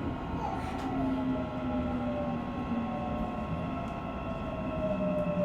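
Subway train running, heard from inside the car: a steady rumble with a motor whine whose several tones slowly fall in pitch as the train slows for the next station.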